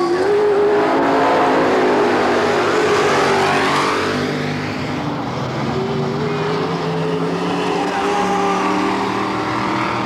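A pack of dirt-track stock car engines racing past, loud and continuous, with several engine notes overlapping and rising and falling in pitch as the cars go round.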